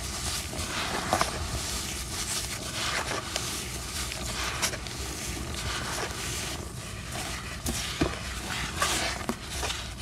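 Dry black sand crumbled and squeezed between gloved hands: a continuous gritty hiss of rubbing, falling grains with scattered sharper crunches.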